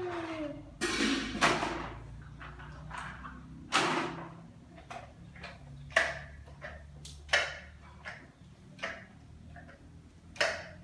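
A string mop and a small child's bare feet on a glazed tile floor: irregular slaps and knocks, roughly one every second or so, as the mop is pushed and swung about. A child's sung note trails off at the very start.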